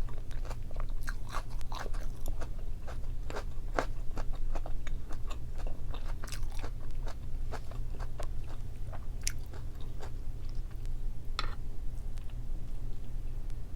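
Close-miked chewing and biting of boiled pork and kimchi: wet, crunchy mouth clicks, coming thick and fast at first and more spaced out in the second half, over a steady low hum.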